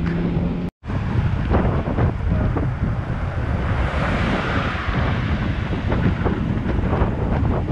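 Wind buffeting the microphone while riding a road bike at speed: a gusty, rumbling roar. The sound cuts out abruptly for a split second just under a second in.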